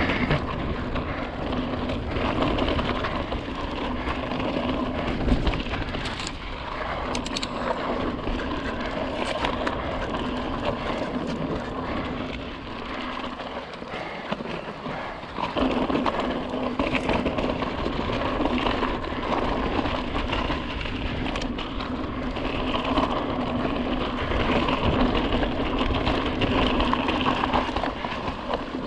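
Fezzari La Sal Peak hardtail mountain bike rolling fast over slickrock and rocky dirt: continuous tyre noise with a steady hum that drops out for a couple of seconds midway, and scattered rattles and clicks from the bike over bumps.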